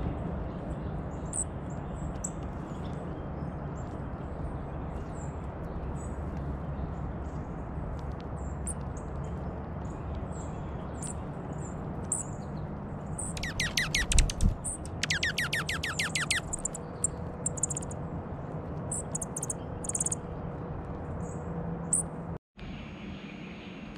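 Slate-colored dark-eyed junco giving repeated short, high chip notes, with two bursts of rapid trill in the middle, each note sweeping down in pitch. A soft low thump sounds about halfway through.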